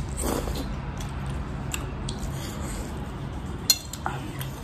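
Eating sounds: Korean instant ramen noodles slurped briefly near the start, then chewing, with a sharp clink of a metal fork against a ceramic plate near the end.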